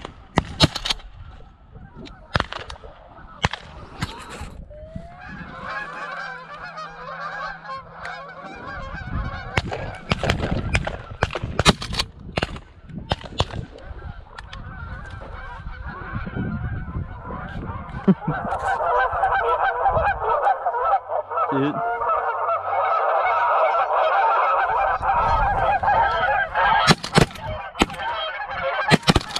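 A large flock of geese honking overhead, a dense chorus of many overlapping calls that grows louder in the second half. Sharp knocks break through it throughout.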